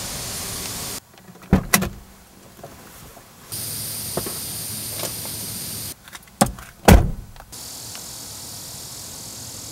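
Car door sounds: a pair of sharp clicks and knocks about a second and a half in, then more clicks and a heavier thump of a door shutting about two-thirds of the way through, over a steady hiss that cuts out and returns.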